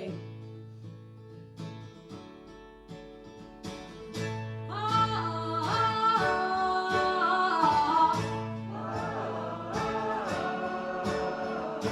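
Acoustic guitar strumming steady chords. About five seconds in, a wordless sing-along part joins, sung by the audience half that has just been cued in.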